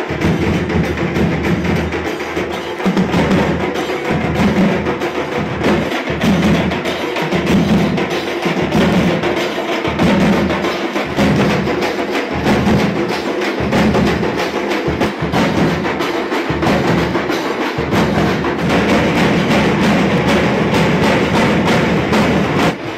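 A periya melam folk troupe playing large drums at a loud, driving beat, with heavy low strokes repeating steadily under dense quick strokes.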